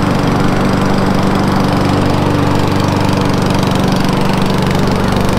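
Self-propelled petrol walk-behind lawn mower, its engine running steadily and evenly.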